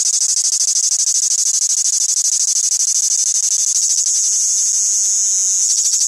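A cicada singing: a loud, continuous high-pitched buzz made of very rapid pulses. About four seconds in, the pulsing smooths into a steadier buzz for a moment before the pulses return.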